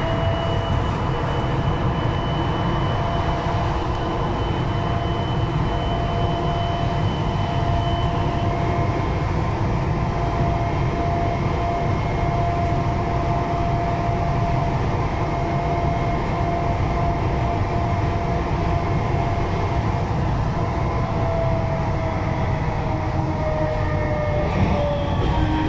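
Siemens VAL 208 rubber-tyred automated metro train running through a tunnel: a steady rolling rumble with an electric motor whine. The whine drops in pitch near the end as the train brakes for the station.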